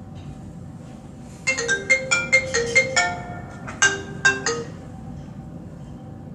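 A short electronic jingle of quick marimba-like notes like a phone ringtone: a run of about eight notes, a brief pause, then three more, over a steady low background hum.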